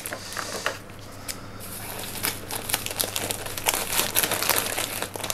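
Plastic and paper wrapping crinkling irregularly as a wrapped orchid is handled and cut open with scissors, with a brief quieter moment about a second in.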